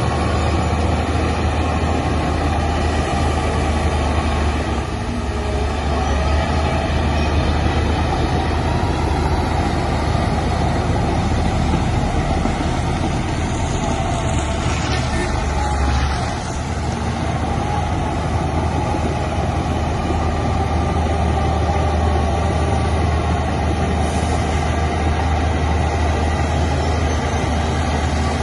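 Diesel engine of heavy earthmoving machinery running steadily under work, a continuous low drone that eases briefly about sixteen seconds in.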